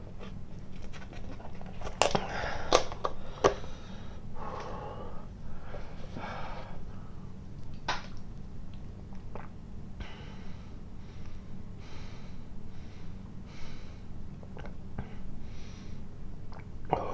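A plastic cap on a milk carton is handled and twisted with a few sharp clicks, followed by drinking from the carton and then heavy breathing about once a second, the breathing hard from the burn of Carolina Reaper pepper sauce.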